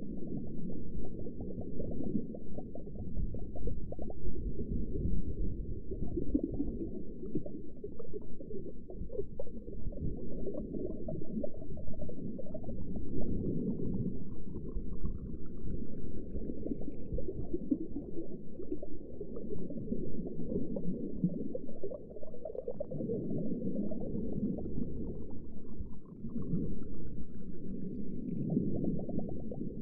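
Underwater ambience: muffled, low rumbling and gurgling of water that swells and fades every few seconds. Twice a faint rising whistle-like glide sounds above it, once midway and once near the end.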